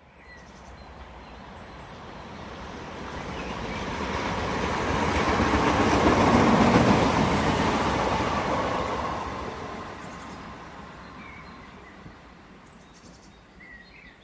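A train passing by: its noise builds steadily, is loudest about halfway through, then fades away.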